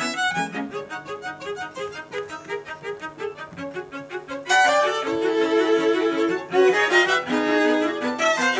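A string quartet of violins and cello playing live: quick short notes at first, then about halfway through a sudden louder passage with longer held notes.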